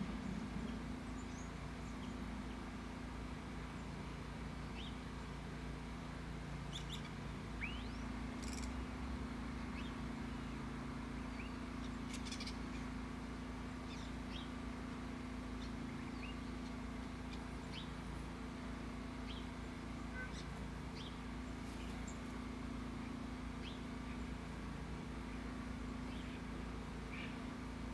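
Small birds chirping: many short, separate calls scattered throughout, over a steady low background hum.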